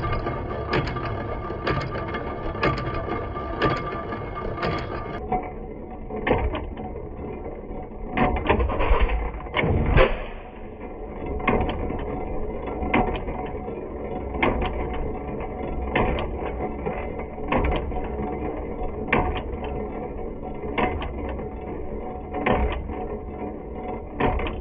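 Single-cylinder Fairbanks Morse 3 hp Z hit-and-miss engine running, with sharp firing strokes separated by coasting strokes as the flyball governor holds the exhaust valve open. The beats come steadily at first, then a cluster of louder firings about eight to ten seconds in, followed by more widely spaced firings.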